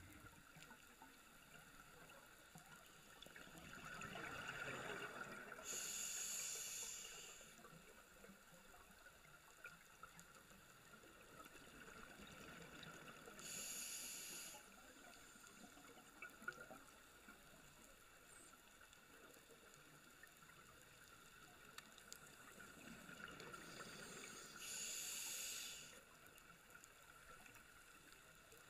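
Scuba diver breathing through a regulator underwater: three breaths, each a short hissing rush with a softer bubbling swell around it, about eight to eleven seconds apart. A faint steady hum sits underneath.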